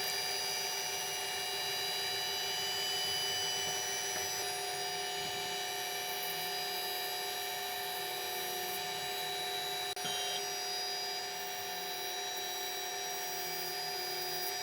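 A powered drilling machine running steadily with a fixed multi-tone whine while it drills the mounting-screw holes in a small metal catch part. There is a brief click about ten seconds in.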